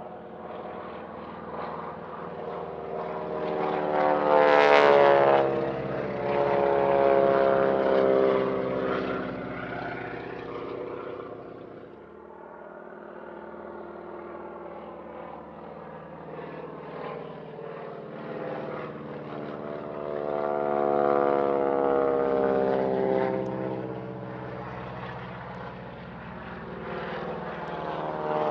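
Wingwalking biplanes with Pratt & Whitney R-985 Wasp Junior radial engines making low passes, a grating roar from the engines and from propeller tips just beyond the speed of sound, the pitch dropping as each goes by. The loudest pass comes about five seconds in, another swells around twenty seconds in, and a third builds near the end.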